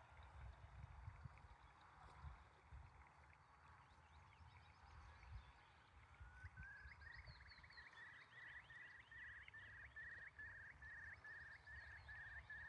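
Eurasian curlew calling faintly. About six seconds in comes a rising note that runs into a long series of repeated notes, about two to three a second.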